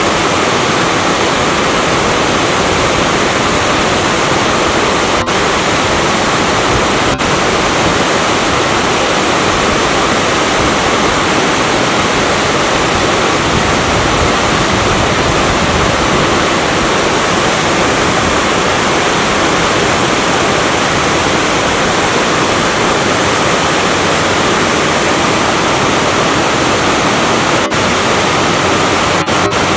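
A natural waterfall about 5 m high, pouring off a rock face into a deep plunge pool. It makes a loud, steady rush of water that never lets up.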